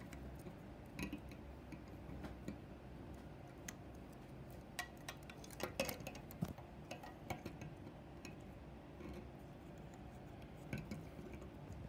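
Scattered light clicks and taps of plastic Lego pieces being handled and their leg joints moved, with a cluster of louder clicks about six seconds in, over a low steady room hum.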